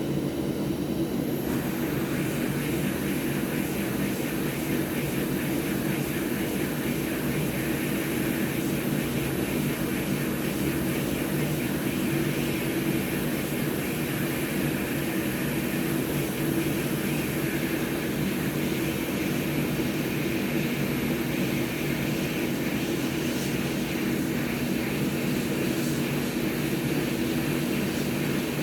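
Hot-air rework station's blower running steadily, its air hiss rising about a second and a half in, as it heats the solder joints of an Xbox Series X HDMI port for desoldering.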